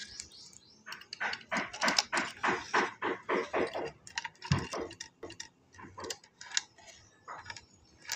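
A rapid run of light clicks and metallic rattles, about three a second, thinning out to scattered single clicks after about four seconds.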